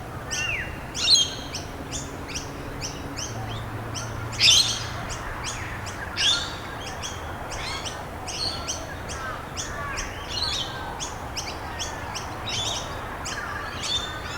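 Birds chirping continuously, several short high chirps a second, with a few louder chirps about a second in and around four and six seconds in.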